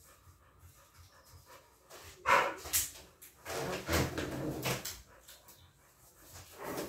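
A dog barking in a few short bouts, the loudest about two seconds in, with a longer run of barks around four seconds.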